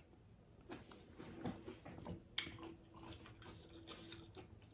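Faint eating sounds: chewing and small mouth noises, with scattered light clicks and one sharper click about two and a half seconds in.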